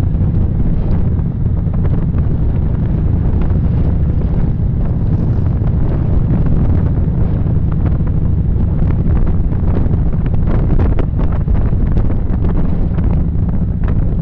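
Wind rushing over a camera microphone on a moving motorcycle, over the low, steady drone of the motorcycle's engine at road speed, with a few short gusts in the second half.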